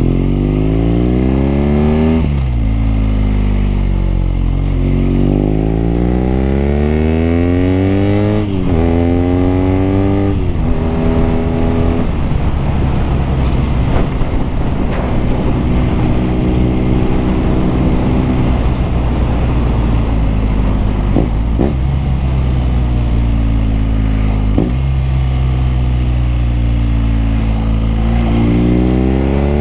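BMW R nineT's boxer-twin engine and exhaust under way, pulling up through the revs and dropping sharply at each upshift, four times in the first ten seconds or so. It then holds a steady cruise before climbing through the revs again near the end.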